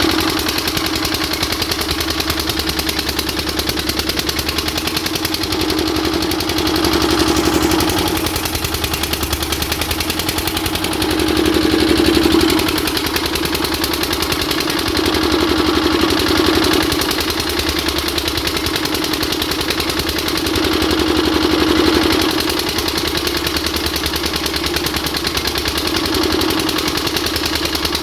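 Engine of a 7.5 kVA portable generator set running steadily, its note swelling slightly and settling back every four to five seconds.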